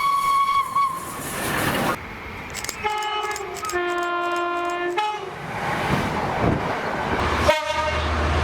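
Train horns: a single steady horn note cuts off about a second in. Then a multi-chime horn sounds a chord of several notes for about two seconds, switching to a lower chord partway through. Rolling train noise follows, ending in an abrupt break near the end.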